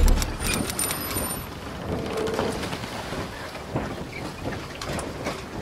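Logo intro sound effect: a low boom at the start, then a crackling, rain-like noise with scattered clicks and a brief high shimmer in the first second or so, slowly fading.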